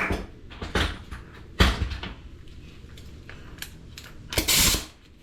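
Metal tools clanking and knocking against each other, several separate strikes, with a louder half-second rattle near the end, as tools are swapped on the 32 mm axle nut that the first tool would not break loose.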